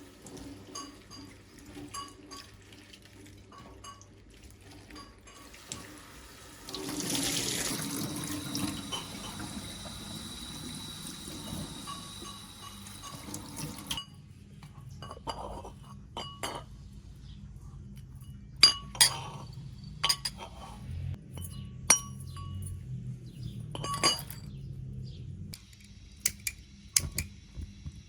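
Tap water running into a sink for several seconds, stopping about halfway through, then sharp clinks and knocks of dishes and glass being handled.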